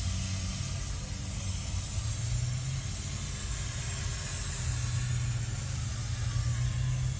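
Steady low rumble with an even hiss inside a car cabin.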